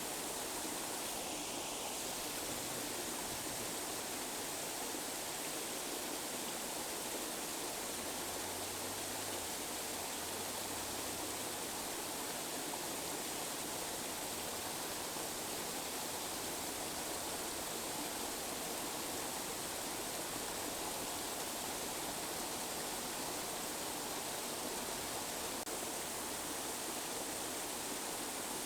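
Steady tinnitus-masking noise: an even, unchanging hiss like rushing water, with no deep rumble beneath it.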